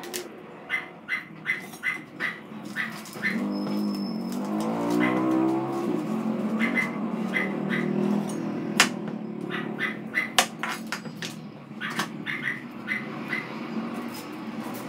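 Kitchen knife cutting vegetables on a plastic cutting board: a run of short knocks, about three a second at times, with a few sharper ones later on. A wavering pitched sound runs through the middle seconds.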